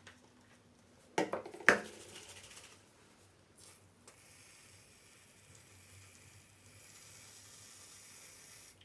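Two sharp knocks about a second in, then an aerosol can of Isana shaving foam sprays foam in a steady hiss that swells slightly near the end and cuts off suddenly.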